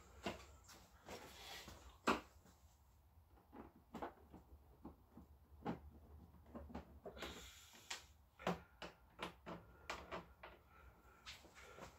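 Irregular clicks and knocks of hand tools and plastic body panels as a Honda Vision scooter's floor panel is being unbolted, with one sharper knock about two seconds in and a brief rustle about seven seconds in.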